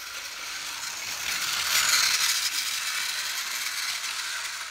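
Plarail toy C57 steam locomotive running along plastic track: a steady whirring of its small battery motor and gears, loudest about two seconds in.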